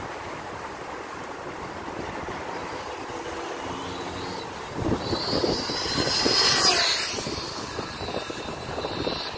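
Kyosho Inferno NEO 3.0 VE electric buggy making a full-throttle speed pass at about 120 km/h. The whine of its Surpass Hobby 4076 2000 kV brushless motor starts about halfway in and grows louder as the car approaches. It is loudest as the car goes by, then drops in pitch and fades as it moves away.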